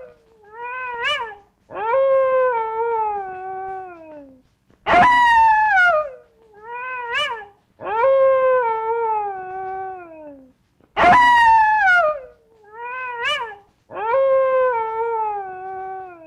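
An animal crying out in long, pitched, wavering calls. They come in a repeating phrase: a loud falling cry, a short rising one, then a long falling wail, and the phrase recurs about every six seconds.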